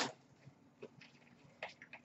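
Trading cards being handled: a brief rustle at the start, then mostly quiet with two faint soft card sounds, a little under a second in and near the end.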